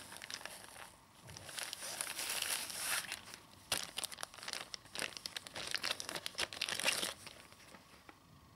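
Clear plastic packaging bag crinkling irregularly as it is handled, dying away about seven seconds in.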